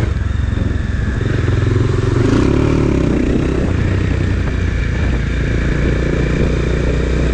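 Bajaj Dominar 400's single-cylinder engine running steadily as the motorcycle rides along, its note bending briefly about two seconds in, under a steady rush of road and wind noise.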